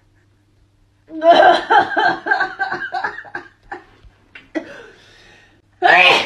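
A woman laughing in quick bursts during a nasal swab test, followed by a few faint clicks and breaths and then one short, loud burst of breath near the end.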